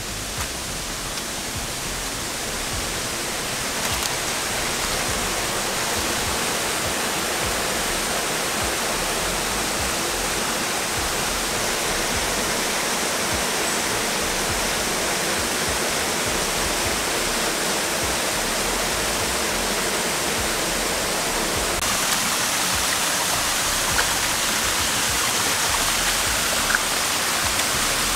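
Steady rushing of water from a small cascade running into a river pool, growing louder over the first few seconds and then holding steady.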